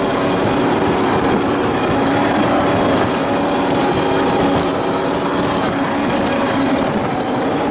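High-performance powerboat running at high speed: a loud, steady engine drone under a dense rush of wind and water noise.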